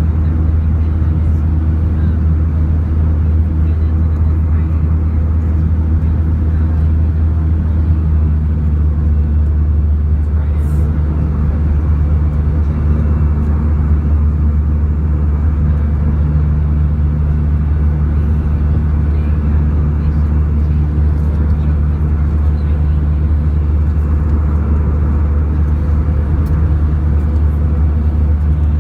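Steady low rumble of an airliner's jet engines and airflow heard inside the passenger cabin, with a few steady low hums and no change in level.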